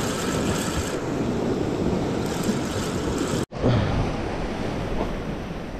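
Sea surf washing in steadily, with wind buffeting the microphone. The sound cuts out abruptly for an instant about three and a half seconds in, then the surf and wind carry on.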